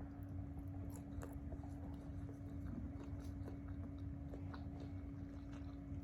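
A person chewing and biting food close to the microphone, with many small wet clicks and crunches, over a steady low hum.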